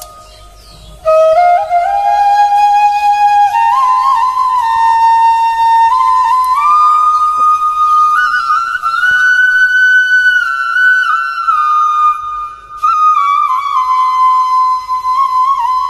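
Background music: a slow, sustained flute melody rising and falling in steps, with a short gap about a second in.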